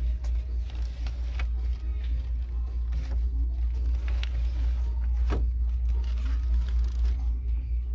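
Store background noise: a steady low rumble with a few faint knocks and faint distant voices.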